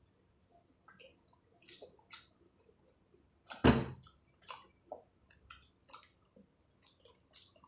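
Close-miked eating: wet squishing, chewing and mouth clicks at an irregular pace, with one much louder wet bite or smack about three and a half seconds in.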